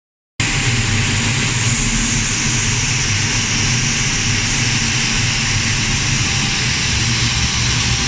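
Gas burner and fan of a 12-ton low-NOx condensing steam boiler running: a loud, steady rushing noise with a low hum underneath, starting about half a second in.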